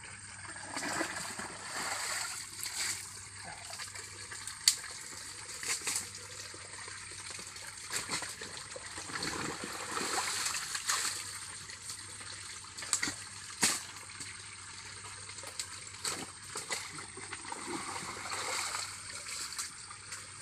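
Muddy water splashing and sloshing as a man wades through a mud-filled channel and scoops wet mud by hand, with scattered sharp splats and slaps. The two sharpest come a little before 5 s in and near 14 s.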